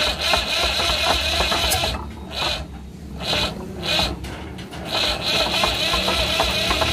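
Electric starter motor of an HMT Zetor 3511 three-cylinder diesel engine cranking in bursts: a long crank of about two seconds, two short stabs, then another long crank from about five seconds in, with the engine not catching, as it is turned over after standing unused for a long time.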